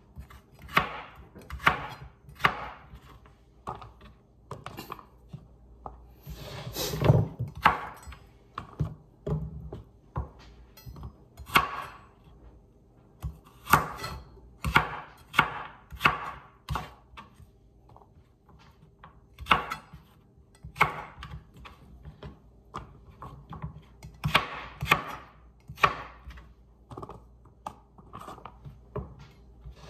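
Chef's knife chopping peeled carrots on a cutting board: irregular sharp strokes of the blade through the carrot onto the board, in clusters with short pauses between. One longer, noisier sound about seven seconds in.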